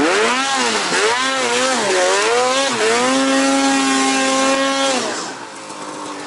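2020 Arctic Cat Alpha One Hardcore 165 snowmobile's two-stroke engine revving up and down repeatedly under throttle, then held at steady revs for about two seconds. About five seconds in the throttle is let off and it drops to a quieter idle.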